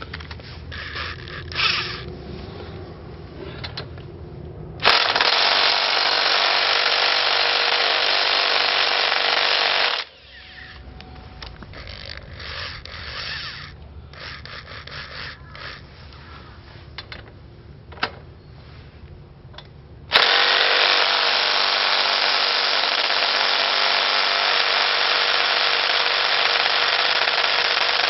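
Impact driver hammering on the rear axle nut of a Triumph Bonneville to break it loose, in two long runs of about five and eight seconds. Quieter clinks of tools being handled come between the runs.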